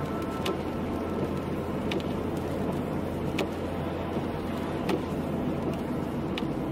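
Car driving on a wet road, heard from inside: steady road and tyre noise with a low hum, and a faint tick about every second and a half.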